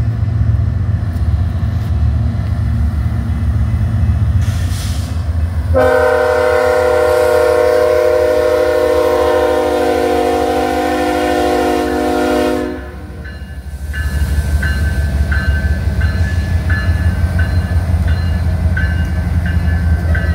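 BNSF diesel freight locomotive approaching with a low engine rumble, then sounding its multi-chime air horn in one long blast of about seven seconds. After the horn it rolls past with a rhythmic rumble and regular clicks of wheels on the rail.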